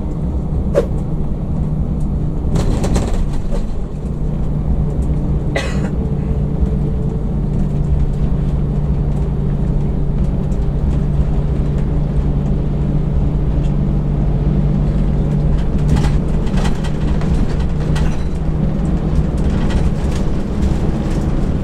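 Mercedes-Benz OH 1526 coach driving along the highway: a steady low engine drone and road noise, broken by brief rushes of noise about three and six seconds in and twice near the end.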